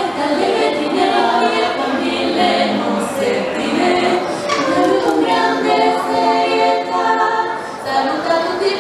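Young female voices singing a slow song without instruments, amplified through a stage PA, in long held notes.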